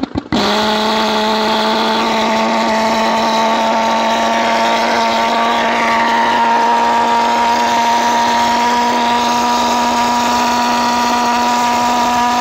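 Pulsed jet engine catching about a third of a second in, then running at a loud, steady buzzing drone of one even pitch.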